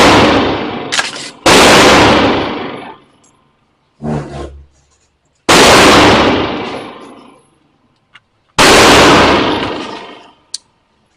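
Firearm shots fired one at a time, unevenly spaced a few seconds apart: four loud shots, each ringing out for a second or more, with small metallic clicks between them.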